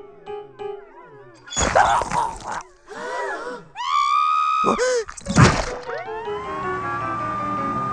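Cartoon sound effects: a wet squelch, a short character cry and a loud thump, then an ambulance siren that rises and holds a long steady wail.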